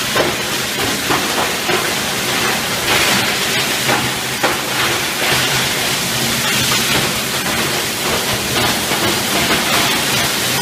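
Avian G4560 high-speed plastic granulator running with a steady loud hiss and hum while it crushes plastic buckets fed into its hopper, with a few sharp cracks of breaking plastic in the first half.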